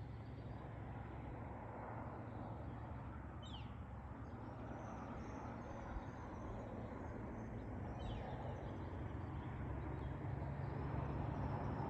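Steady low rumble that slowly grows louder, with two short, high, falling chirps about three and a half and eight seconds in.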